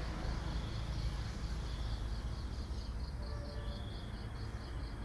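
Faint background room noise: a steady low hum with a faint high-pitched chirp repeating about four times a second.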